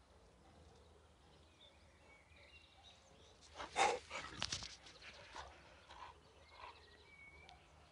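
Faint birds chirping in the background. About three and a half seconds in comes a loud jumble of short knocks and rustling, then a few quieter short sounds.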